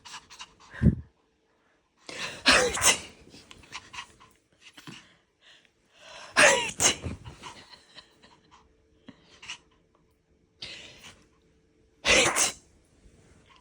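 A person sneezing loudly three times, several seconds apart, with short softer noises in between. A low thump comes about a second in.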